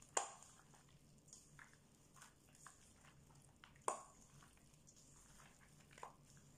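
Faint squelching of spice-coated meat chunks being mixed by a gloved hand in a stainless steel bowl. A few sharp clicks stand out, the loudest just after the start and another about four seconds in.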